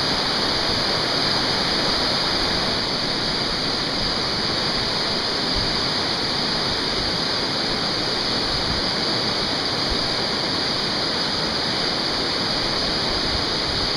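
Whitewater river rapids: a steady rush of churning, fast-flowing water.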